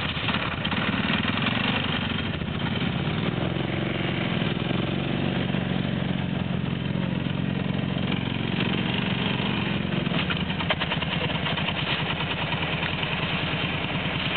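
Quad bike (ATV) engine running steadily at idle with a fast even pulse; from about three to eight seconds in a steadier, higher hum rises over it, then falls back.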